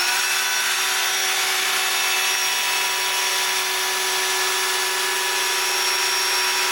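Cordless drill running at a steady speed with a small bit, boring a hole through a floor plank: one unbroken whine with a steady pitch. The hole is drilled so glue can be injected under the plank to stop it popping.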